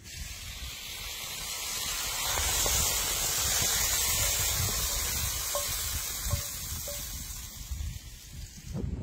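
Hot roasted potatoes, tomatoes and meat sizzling with a steady hiss as they are tipped out of a skillet onto a wooden board. The hiss starts suddenly, swells over the first few seconds, then fades and stops just before the end.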